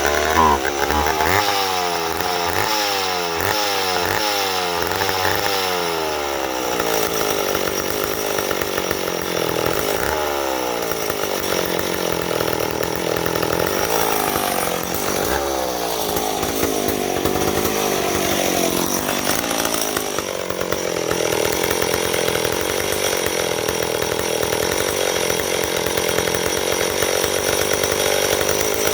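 McCulloch 10-10A two-stroke chainsaw engine running right after starting, its pitch sweeping up and down over and over during the first several seconds, then running more steadily in the second half.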